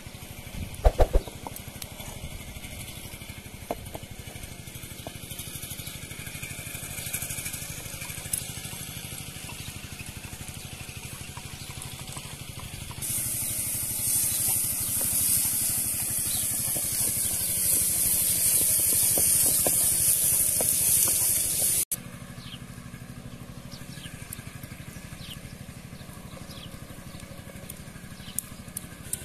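Walnut and herb filling frying in a metal pan over a wood fire, stirred with a wooden spoon. A loud, even sizzling hiss comes in about halfway through and stops abruptly after several seconds. A steady low hum runs underneath.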